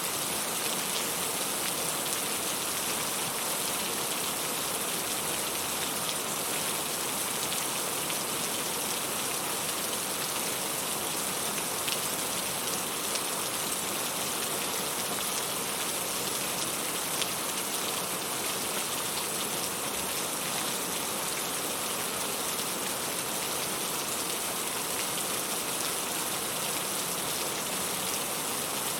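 Steady rain falling on a surface, an even hiss of many drops with no break or change.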